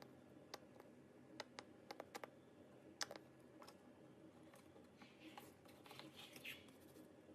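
Slime being worked by hand: scattered small clicks and pops, the loudest about three seconds in, then a soft crackling squish a little after five seconds in.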